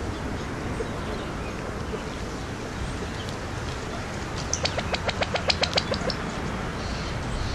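A rapid run of about a dozen sharp clicks from feeding birds at close range, lasting under two seconds about halfway in, over a steady outdoor hiss with a few faint chirps.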